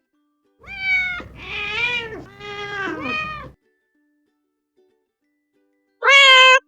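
Domestic cat meowing: four drawn-out meows in quick succession, then a pause and one short, louder meow near the end.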